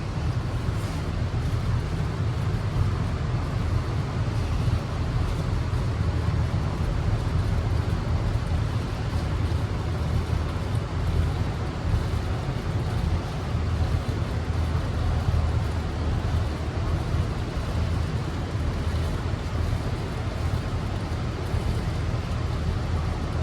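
Motor boat's engine running steadily while underway, a low even drone.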